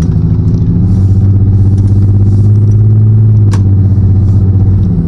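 Lexus GS300's straight-six engine and exhaust droning loudly inside the cabin while driving, rising slightly in pitch about a second in, holding, then easing off near the end. There is a single sharp click about three and a half seconds in.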